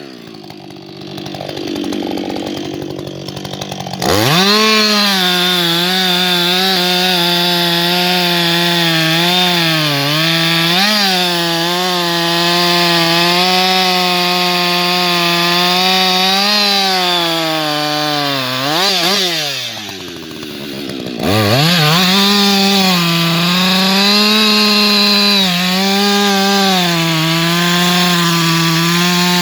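Husqvarna 560XP two-stroke chainsaw running at high revs while cutting wood, its pitch dipping and recovering under load. After a quieter first few seconds it starts abruptly at full revs. Near two-thirds of the way through the revs climb and then drop away, before snapping back to full throttle.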